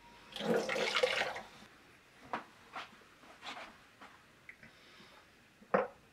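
Water splashing and trickling for about a second, as when wetting a waterstone, followed by a handful of short, sharp knocks or scrapes spread through the rest of the time.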